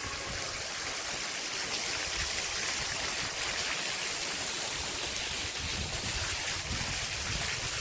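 Heavy rain pouring down in a sudden downpour, a steady dense hiss without letup.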